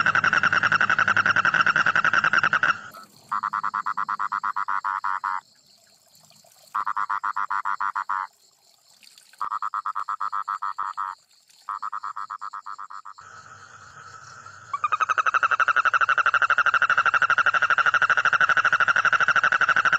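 A toad calling with a rapid pulsing trill on one steady pitch. It runs continuously at first, then breaks into four shorter bursts with brief silences between them, then settles back into a long unbroken trill.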